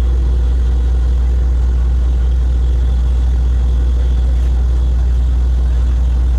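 Borewell drilling rig's diesel engine running steadily, a loud, unchanging low rumble.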